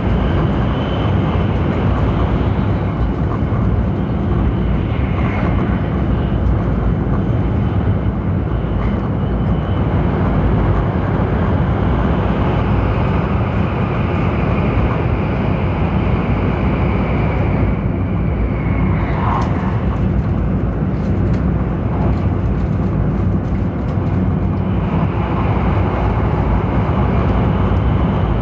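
Cabin noise inside a Taiwan High Speed Rail 700T trainset running between stations: a steady rumble and rush of wheels and air. About two-thirds of the way through, a brief tone and a spell of light ticking sound over it.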